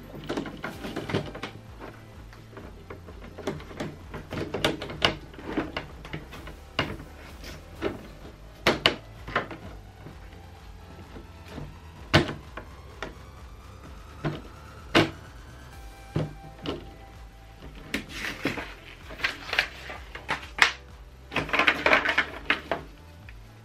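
Scattered clicks and knocks of hard clear plastic panels being handled, with denser rustling near the end as the silicone mat and instruction sheet are lifted out.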